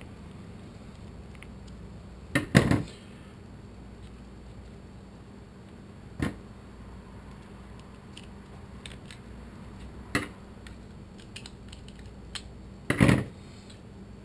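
Small screwdriver clicking on screws in the plastic housing of a Thermacell mosquito repeller as two screws are removed, a handful of sharp clicks and clacks of handled plastic parts, the loudest about two and a half seconds in and again near the end.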